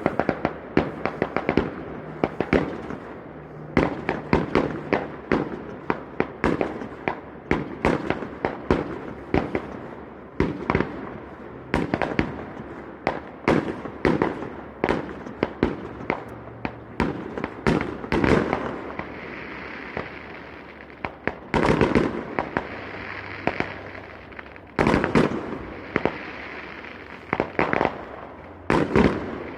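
Fireworks display: a rapid run of loud bangs from bursting aerial shells, several a second at first, then spaced further apart, each trailing off in echo, with crackle between them.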